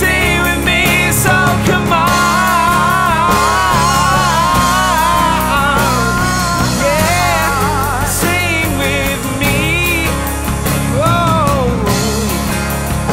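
Indie rock band music: bass, drums and guitars under a prominent melodic lead line that bends and wavers in pitch.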